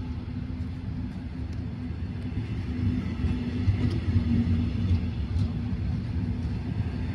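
Red double-deck regional train coaches rolling slowly past along the platform track: a steady low rumble of wheels and running gear with a faint hum, growing a little louder about halfway through.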